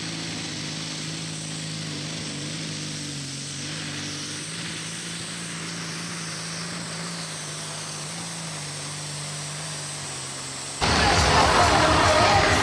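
An engine idling steadily, its pitch dipping slightly a few times. Near the end it is cut off abruptly by much louder noise, likely crowd and music.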